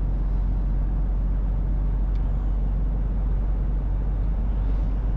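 Steady engine drone and road noise inside the cab of a Mercedes-Benz Actros L 1848 tractor, its 480 hp 12.8-litre straight-six diesel pulling evenly as cruise control takes the speed up toward 80 km/h.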